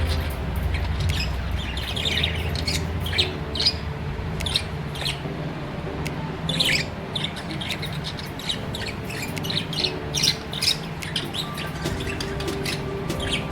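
Budgerigars chirping: many short, quick high chirps in rapid, irregular succession, over steady low background music.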